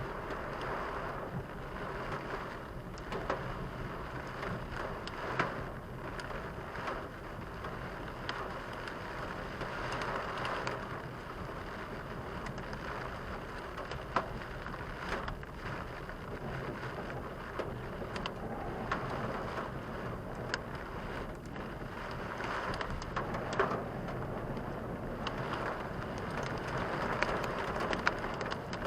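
Heavy rain drumming on a moving car, with many sharp drop hits over a steady wash of road and spray noise that swells and eases every few seconds, heard from inside the car.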